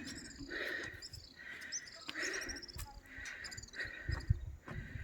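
Insects chirping in short, repeated trills, with a few low thumps on the microphone about four seconds in and near the end.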